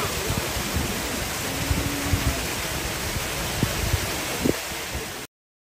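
Steady rushing and splashing of water in a polar bear's pool as the bear moves in it, with a few dull low knocks. The sound cuts off abruptly near the end.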